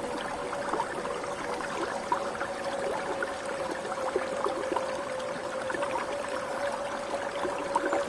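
Shallow spring-fed stream babbling and gurgling over rocks, a steady flow with many small bubbling splashes. A steady mid-pitched tone runs underneath the water noise.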